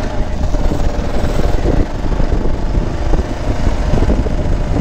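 Motorcycle engine running as the rider speeds up to about 30 mph on a dirt track, with a heavy, fluctuating low rumble.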